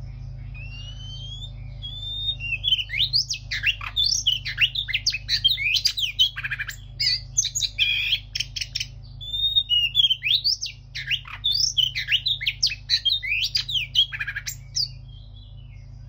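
Oriental magpie-robin, a bird in moult, singing: a few sliding whistles, then two long runs of rapid, varied whistled notes and harsh rasping sweeps with a short pause between them.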